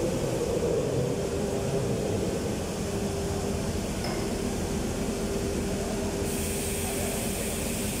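Industrial woodworking machine running in a factory hall: a steady mechanical hum with a low rumble, joined by a hiss of air about six seconds in.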